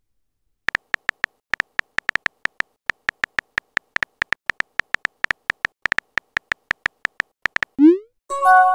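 Simulated phone-keyboard key clicks from a texting app: short ticks a few a second as a message is typed. Near the end comes a quick rising swoosh as the message is sent, then a short chime.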